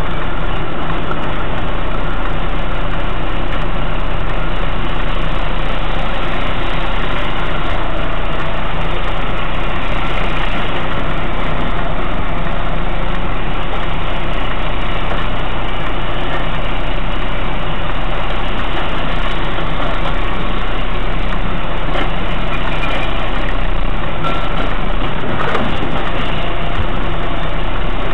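Volvo FH lorry's diesel engine running steadily at low speed, heard from inside the cab.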